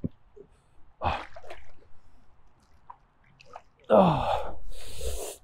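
Faint splashing and dripping of water as a big bass is lifted from the pond by hand, then near the end a man's loud gasping exclamation that falls in pitch.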